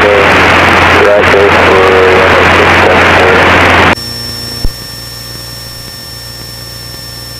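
Cessna 172N cabin noise in cruise: the four-cylinder Lycoming engine and propeller drone steadily. At about four seconds the sound cuts abruptly to a much quieter steady hum with a faint high-pitched whine.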